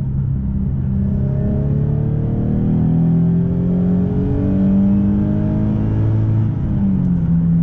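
Nissan 370Z Nismo's 3.7-litre V6, breathing through a non-resonated Fast Intentions TDX cat-back exhaust with the catalytic converters fitted, heard from inside the cabin under hard acceleration after a downshift. It revs up to about 7,000 rpm, climbing steadily in pitch for some six seconds, then falls back in pitch near the end.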